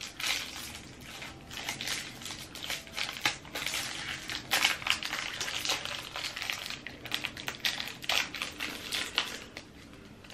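Candy bar wrapper crinkling and crackling in irregular spurts as it is handled and opened.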